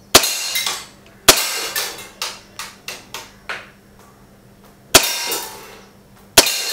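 Hellraiser M CO2 BB pistol, a Makarov replica with full blowback, firing four sharp shots at uneven intervals. Each shot has a short ringing tail. Several lighter clicks come between the second and third shots.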